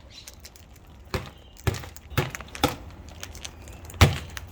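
A handful of sharp taps or knocks, irregularly spaced, the loudest about four seconds in.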